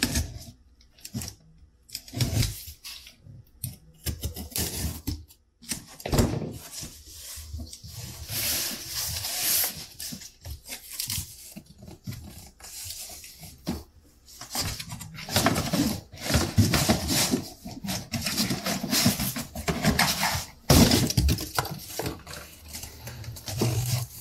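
Cardboard shipping carton being cut open and unpacked: a utility knife slitting the packing tape near the start, then flaps and cardboard inserts pulled open and folded back, in an irregular run of scrapes, rustles and knocks.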